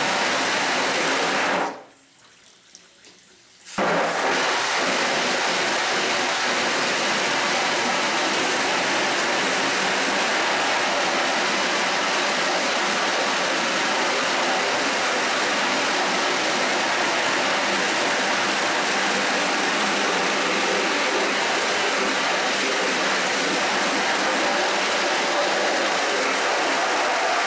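Steady hiss of a fine water jet from a spray wand striking a screen-printing screen, washing out the exposed emulsion stencil. The spray cuts out about two seconds in and starts again about two seconds later.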